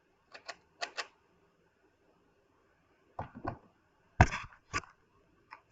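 Sharp plastic clicks and clacks in pairs and short clusters, the loudest just past four seconds in.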